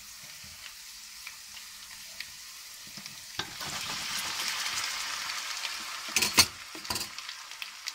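Raw potato sticks frying in hot oil in a pot, a steady sizzle that grows louder about three seconds in. A few sharp knocks come near the end.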